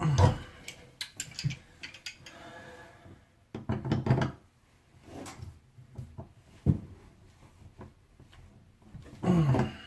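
Clicks, knocks and scrapes of a faucet's replacement valve cartridge being pushed and worked by hand into the valve body, which will not seat all the way. There are louder bursts near the start, about four seconds in and just before the end.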